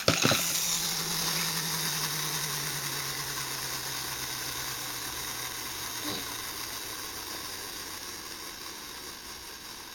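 Clockwork spring motor of a wind-up toy sheep whirring as it runs down, its hum slowly falling in pitch and fading away over several seconds, with a small knock about six seconds in.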